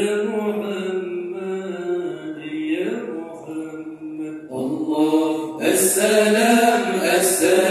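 Male voices chanting Acehnese dike, a devotional sholawat for the Prophet's birthday, sung unaccompanied into microphones in long, slowly bending held notes. The chant grows louder about three quarters of the way through.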